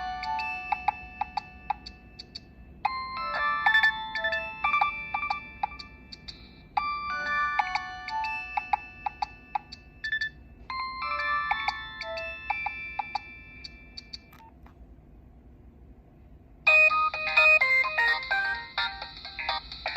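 Nokia 6016i playing one of its built-in ringtones: a short electronic melody of several notes at once, repeated four times. After a pause of about two seconds a different, busier ringtone starts near the end.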